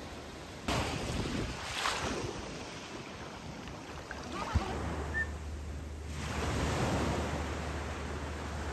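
Sea waves washing in, with wind on the microphone. A single sharp click comes about four and a half seconds in, and a low steady hum runs underneath after it.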